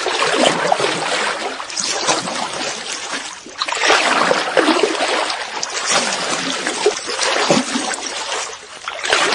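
Water splashing and sloshing around a kayak, swelling and easing several times.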